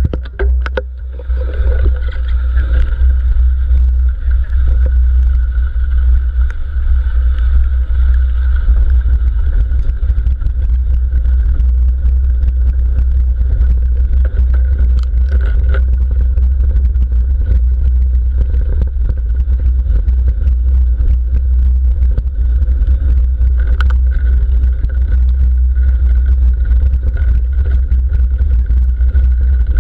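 Mountain bike riding fast down a wet gravel track, heard through a handlebar-mounted GoPro Hero3: a steady low wind rumble on the camera, with tyre noise and scattered rattles and clicks from the bike.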